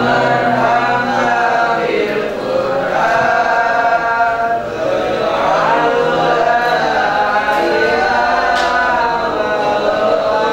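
Male voices chanting a religious recitation together: a slow, continuous melody with long held notes.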